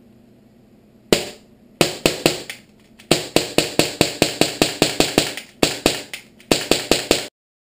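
Pistol firing a rapid string of about two dozen sharp shots, in quick runs of up to about five a second, stopping abruptly near the end.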